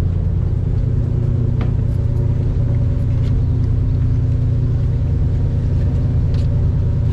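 Ferry engine running with a steady, loud low rumble and a constant hum above it.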